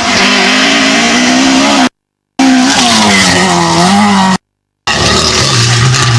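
Ford Escort Mk2 rally car driven hard on a gravel stage: the engine note rises and falls with throttle and gear changes over the hiss of gravel spraying from the tyres. The sound cuts out twice for a moment.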